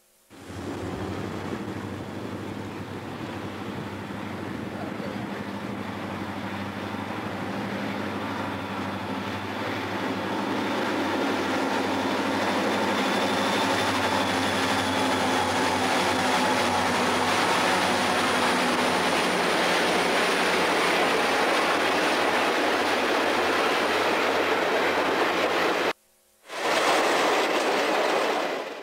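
A Rio Grande diesel locomotive running as it approaches and passes, its engine growing louder over the first dozen seconds, followed by a string of passenger cars rolling past on the rails. Near the end the sound drops out for a moment at a film splice and comes back.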